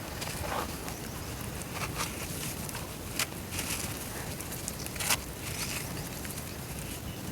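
Dry brown dirt crumbling and dissolving in water, giving a steady fizzing crackle with scattered small clicks and two sharper pops about three and five seconds in.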